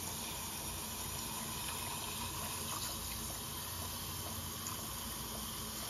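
Water running steadily from a garden hose, filling containers of soaking seeds.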